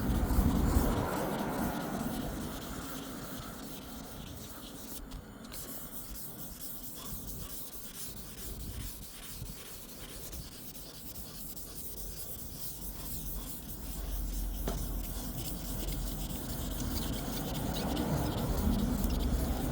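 Hand wet sanding of a car's painted panel: sandpaper rubbing back and forth over the wet paint, dragging and sticking because no soap is in the water. The rubbing is louder at the start and again near the end.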